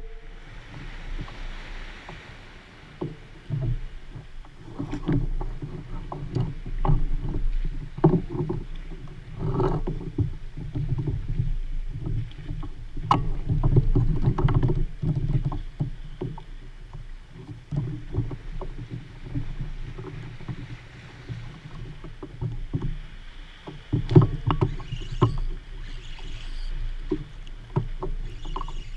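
Water lapping and slapping against a plastic fishing kayak's hull in irregular swells, with scattered small knocks and clicks from gear being handled on the boat.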